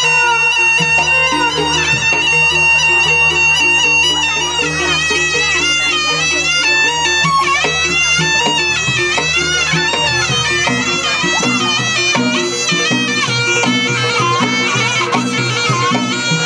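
Live jaranan gamelan music: a shrill double-reed slompret holds a long note, then from about four seconds in plays a wavering, ornamented melody, over drums and gongs keeping a steady repeating beat.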